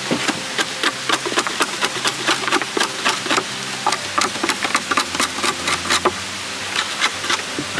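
Machete blade shaving along the edge of a wooden plank in quick, repeated scraping strokes, about four or five a second. The strokes thin out after about six seconds.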